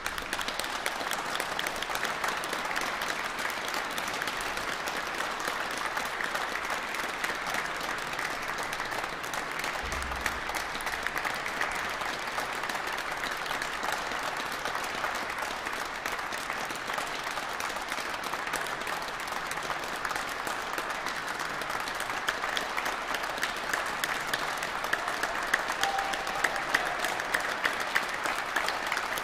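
Audience applauding steadily, with single louder claps standing out more toward the end.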